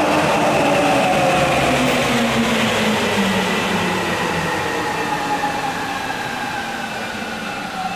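Rubber-tyred 8000-series subway train moving away along the platform. Its running noise carries several whines that fall slowly in pitch while the whole sound fades gradually.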